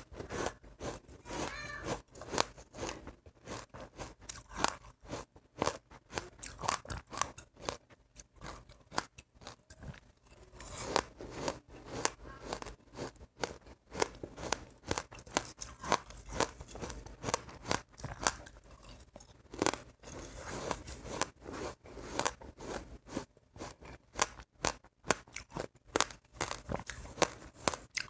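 Close-up chewing of crunchy seeds (white sesame seeds or passion fruit seeds): a dense, irregular run of sharp crunches and crackles, several a second.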